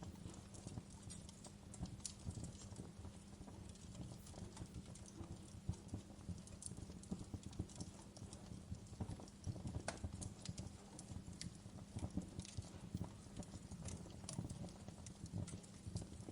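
Wood fire crackling: soft, irregular pops and snaps over a low steady hum.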